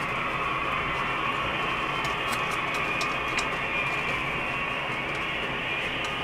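Sound-effects recording of loud noises played from a CD through a speaker, here a steady mechanical din with no breaks. A few faint sharp clicks sound over it about two to three seconds in.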